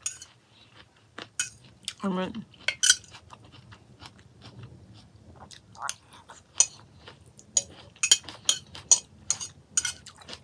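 Metal spoon clinking and scraping against a glass dish while salad is scooped up: a run of short, sharp clicks, most frequent in the second half.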